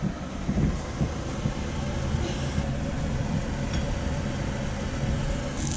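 A low steady rumble with a few soft knocks, then near the end hot oil in a frying pan starts sizzling and crackling as limpet paste goes in with the garlic.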